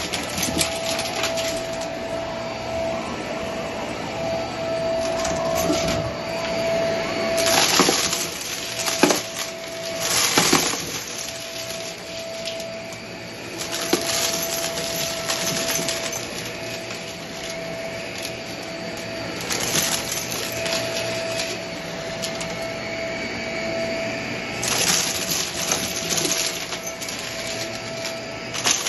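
Shark vacuum cleaner running over carpet with a steady motor whine. Several times it surges into loud crackling and rattling as it sucks up small crunchy debris.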